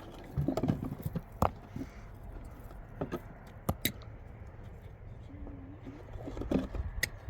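Irregular sharp knocks and scrapes of hard objects being handled: a quick cluster near the start, single knocks in the middle, and another cluster near the end, over a low rumble.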